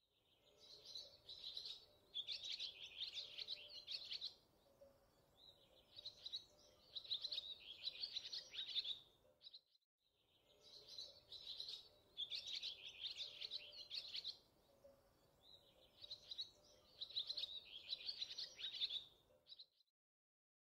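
Birds chirping and twittering in quick bursts of song, the same ten-second stretch of birdsong heard twice in a row, cutting off shortly before the end.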